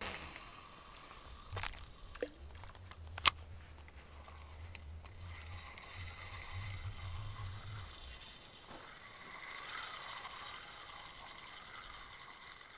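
Fishing rod and reel being worked: a falling swish at the start, a few sharp clicks, then the reel cranked in with a whirring that rises and falls about twice a second.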